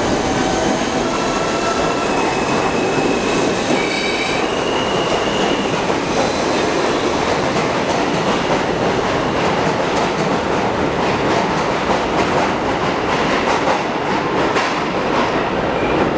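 New York City subway D train running out of the station, with a steady loud rumble and the clatter of wheels over rail joints. Thin, high wheel squeals come and go between about one and six seconds in, and sharp clacks grow more frequent in the second half.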